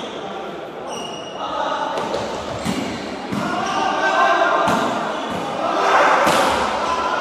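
A volleyball struck hard by hand several times in a shooting volleyball rally, sharp slaps a second or two apart, with players calling out.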